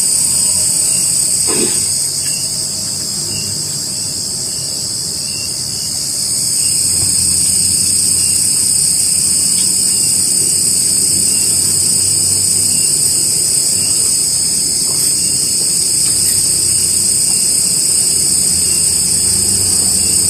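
Steady, high-pitched insect chorus, dipping slightly in level a few seconds in before filling back out.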